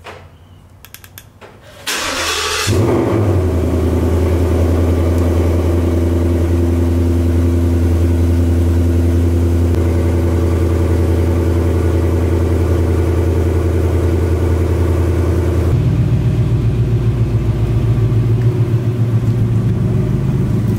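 2018 Ford Mustang GT's 5.0 L Coyote V8 starting up about two seconds in and settling into a steady idle through the exhaust. About 16 seconds in the sound changes abruptly to a lower, more pulsing idle.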